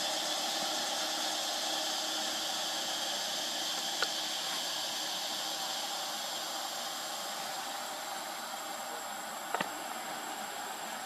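Steady background hiss with a thin, high, steady tone running through it, and a couple of brief faint clicks, one about four seconds in and one near the end.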